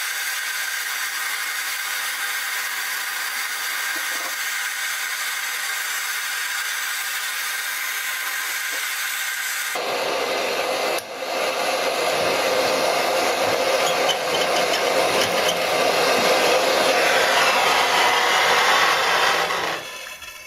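Blowtorch flame hissing steadily while it heats a soldered copper pipe joint to melt the solder. About ten seconds in the hiss gets louder and fuller, and it dies away just before the end.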